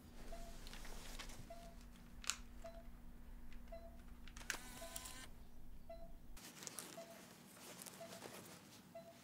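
Soft electronic beep repeating about once a second, like a bedside patient monitor, over a low steady hum. Two sharp clicks from a camera being handled sound about two and four and a half seconds in, the second with a short rattle.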